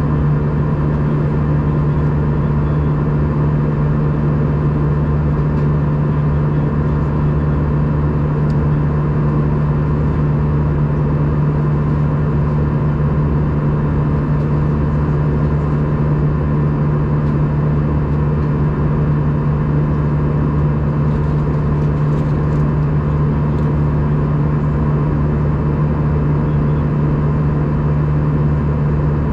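Steady cabin noise of an Airbus A320 airliner in flight: the constant drone of the engines and airflow, with a strong low hum that does not change.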